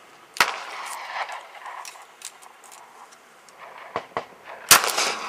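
A single handgun shot fired over a chronograph near the end is the loudest sound. It is a sharp crack, from a handload of a 100-grain Berry's bullet over 3.1 grains of 231 powder that the chronograph clocks at about 714 feet per second. Earlier there is a sharp knock about half a second in and a couple of light clicks just before the shot.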